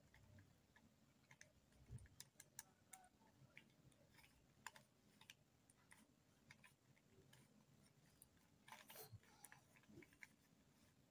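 Faint, irregular plastic clicks of a 3x3 Rubik's cube's layers being turned by hand, with a quicker run of clicks about nine seconds in.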